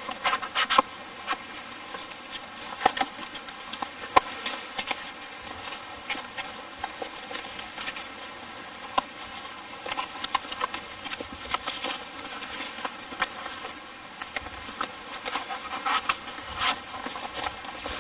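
Wood campfire crackling, with irregular sharp pops and snaps over a faint steady hiss.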